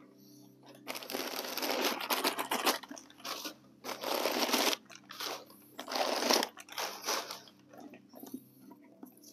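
Rustling and crinkling from a full-grain leather tote bag being handled and shifted onto the shoulder. The longest burst runs for nearly two seconds about a second in, followed by shorter bursts around four and six seconds in.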